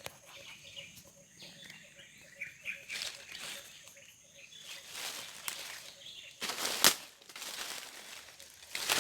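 Footsteps and rustling through dry leaves and undergrowth, with a sharp loud rustle about two-thirds of the way through and another at the end; faint bird chirps in the background.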